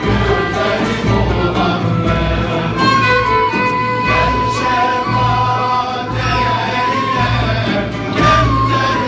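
Male choir singing with a Turkish traditional ensemble of oud, kanun, flute, violin and bendir frame drum. The drum keeps a steady beat, and a long high note is held from about three seconds in.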